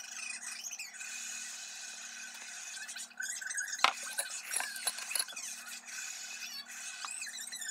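Sped-up eating audio: a high hiss and a low hum, with a sharp clink of a utensil against a glass bowl about four seconds in, followed by a few lighter clicks.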